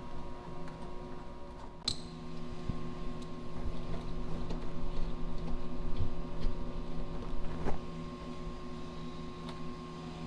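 Wrenches working the bolts and nuts that hold a truck's rear mud flap, with a few sharp metallic clicks, over a steady mechanical hum.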